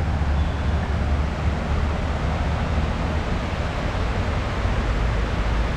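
Steady rushing of water cascading down the walls of a 9/11 Memorial reflecting pool: an even, unbroken noise of falling water, heaviest in a low rumble.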